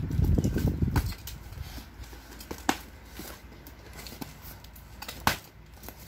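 Hands handling an opened cardboard carton of small boxed bottles: a low rustling rumble in the first second, then scattered sharp knocks and taps, the loudest about five seconds in.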